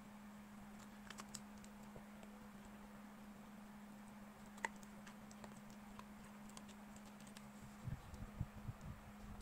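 Faint scattered clicks from a puppy chewing and gnawing, over a steady low hum, with a few soft low bumps near the end.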